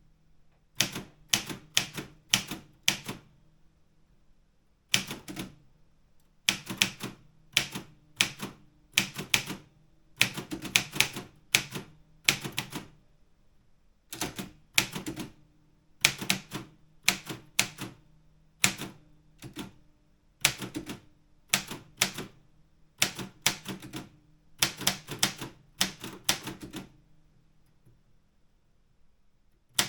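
Optima Elite 3 manual typewriter being typed on: clattering keystrokes in quick bursts of several strokes, with short pauses between words and a longer pause near the end.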